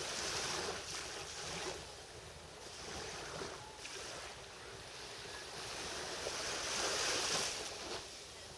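Small waves of a calm sea lapping and washing onto a sandy beach, the hiss of the surf swelling and fading every few seconds.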